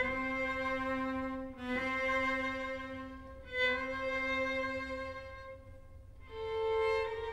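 Background music: slow string music with long held notes, changing pitch every second or two.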